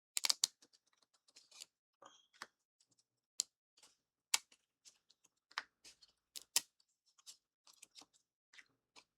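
Scattered small clicks and taps from miniature-kit parts being handled and fitted together, coming irregularly with a few sharper clicks among fainter ones.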